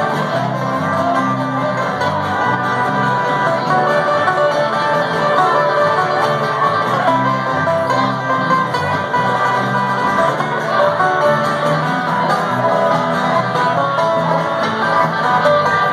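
A live bluegrass band playing a tune, with banjo rolls over acoustic guitar and electric bass guitar.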